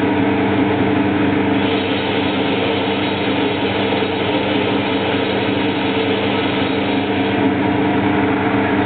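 Homemade CNC lathe running: a steady motor hum made of several steady tones over a hiss, cutting off abruptly at the very end.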